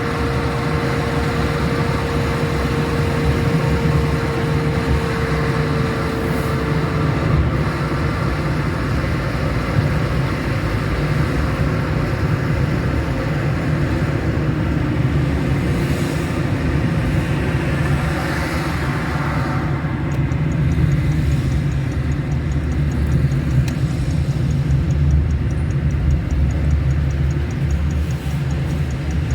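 Road noise of a moving car: a steady low rumble of engine and tyres, with a faint steady hum that fades out about seven seconds in.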